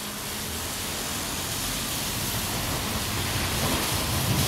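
Steady rain with the hiss of car tyres on a wet road. A low rumble grows slightly louder near the end.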